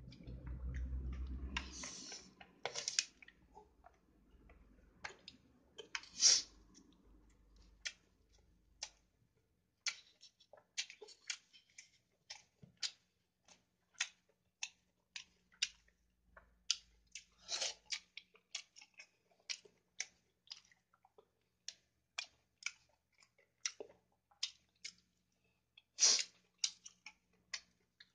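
Close-miked mukbang eating sounds: a person chewing a mouthful of chicken biryani, with many short, wet mouth clicks and lip smacks at irregular intervals. A few are sharper and louder, about six seconds in and near the end.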